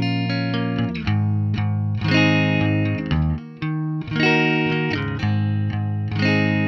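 Clean electric guitar with no effect engaged, playing chords and picked notes that ring out, with a fresh strum about every two seconds.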